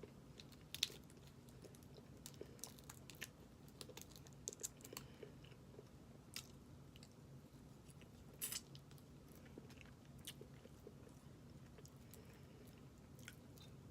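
A person eating a snow crab boil close to the microphone: quiet chewing with scattered crunches and sharp clicks, the loudest about a second in and again around eight and a half seconds in.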